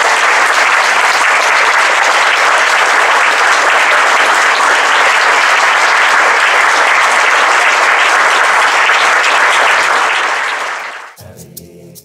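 Audience applauding in a steady wash of clapping that dies away about eleven seconds in, with music starting just after.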